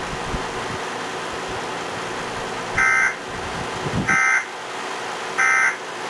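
Emergency Alert System end-of-message data tones: three short, loud bursts of the buzzy SAME digital code, each about a third of a second long and spaced about 1.3 seconds apart, signalling that the alert message has ended. Steady background hiss underneath.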